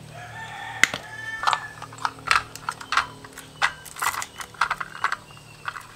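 Plastic case of a Tekiro screw-extractor set being handled and opened: a dozen or so sharp clicks and knocks, with the steel extractor bits rattling against the plastic inside.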